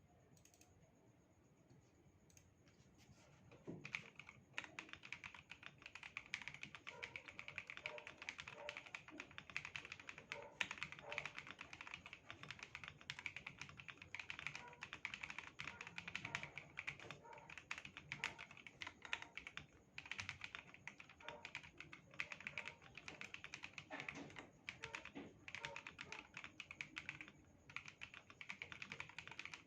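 Continuous fast typing on an Akko PC75B Plus mechanical keyboard fitted with pre-lubed Akko CS Silver linear switches, heard through a phone microphone. It starts faint, then a steady run of quick key clacks begins about four seconds in, with brief pauses now and then.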